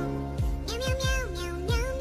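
Background music with a steady beat and a high melody.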